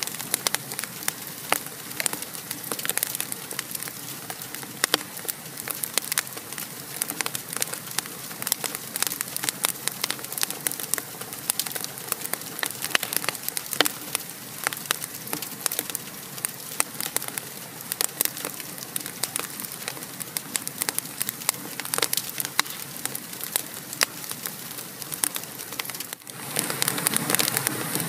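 Wood fire burning in a fireplace, a steady hiss with frequent sharp crackles and pops. It dips briefly about 26 seconds in and comes back louder.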